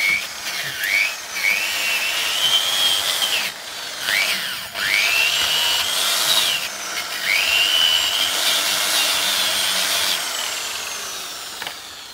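Workzone angle grinder with a wire wheel brush scouring a steel brake caliper carrier. The motor's whine drops in pitch each time the wheel is pressed onto the metal and climbs back as it frees up, several times over, then fades near the end.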